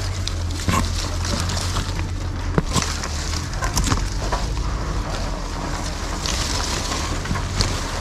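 Apple-tree leaves and branches rustling as hands push through the foliage picking fruit, with scattered sharp snaps and clicks of twigs and stems, over a steady low rumble.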